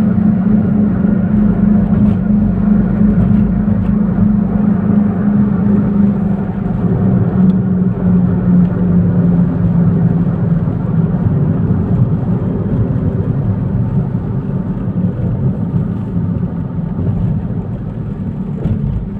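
A car humming while driving, heard inside the car: a steady low drone over road rumble that sinks slightly in pitch and grows quieter toward the end.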